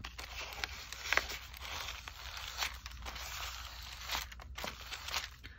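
A card scraped and dragged through wet paint across a paper page, a rough scraping in several strokes.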